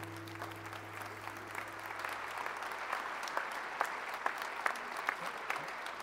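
Audience applauding, the clapping building up over the first second or two while a final acoustic guitar chord fades out.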